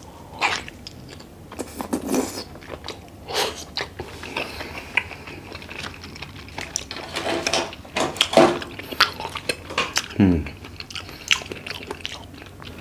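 A person biting into a grilled jumbo oyster topped with sweet chili garlic sauce and chewing it, with irregular wet clicks and smacks of the mouth.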